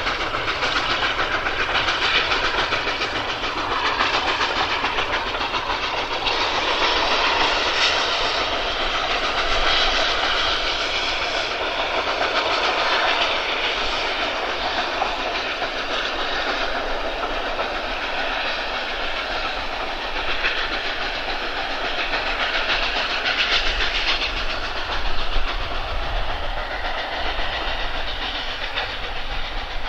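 Steam locomotive hauling a train of coaches past, working steadily with its exhaust beats and the running of the coaches on the rails, continuous throughout.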